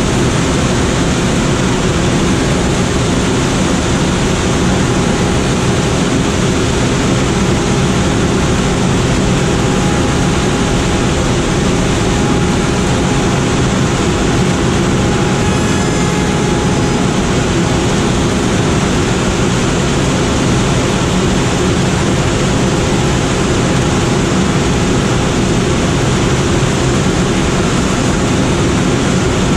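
Steady loud rush of air with a low engine drone in the cockpit of a Schweizer SGS 2-32 glider, the sound of being towed aloft behind the tow plane. A faint steady tone runs through the middle.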